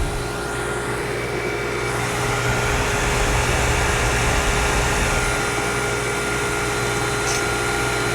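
1973 Gibson 8000 BTU window air conditioner running on high cool: the fan blowing air over a steady hum from the compressor. The rush of air gets a little louder about two seconds in.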